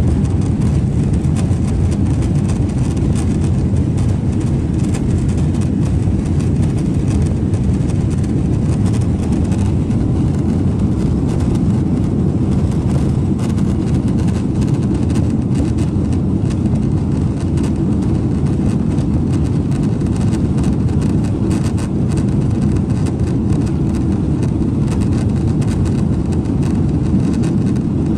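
Steady low rumble inside a Boeing 777 cabin as the airliner taxis: engines at low thrust and the wheels rolling over the taxiway, with faint knocks from the joints in the pavement. It keeps an even level with no spool-up.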